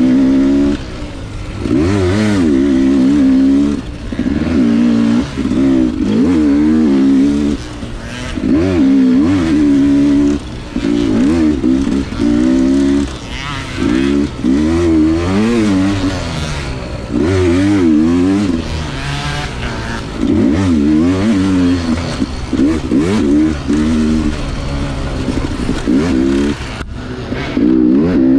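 Yamaha two-stroke dirt bike engine revving hard and backing off again and again, its pitch climbing and dropping every second or two as the throttle is worked.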